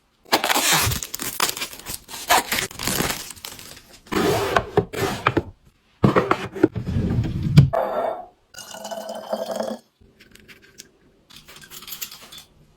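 Packaging being torn open and crinkled in a string of short clips, each beginning and ending abruptly.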